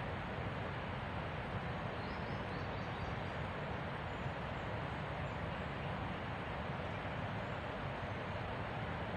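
Steady, even rushing outdoor ambience with no distinct events, and a few faint, high chirps about two to three seconds in.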